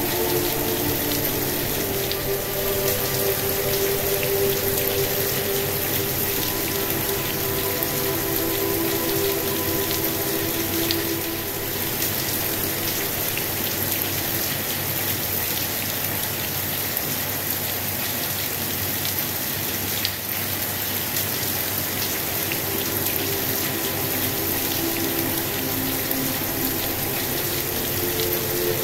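Steady rain with scattered pattering drops, under soft sustained synth tones that fade out over the first several seconds and return near the end.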